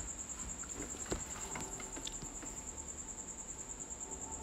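Faint scrapes and light taps of a plastic cake scraper smoothing buttercream on the sides of a square cake. Under them runs a steady, high, rapidly pulsing tone.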